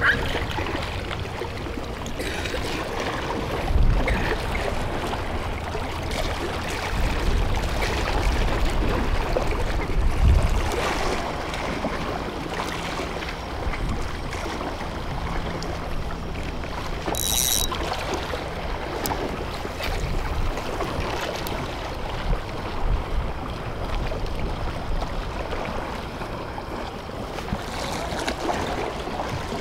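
Wind buffeting the microphone over sea water washing against a breakwater: a steady rushing noise with low gusty thumps, the strongest about four and ten seconds in.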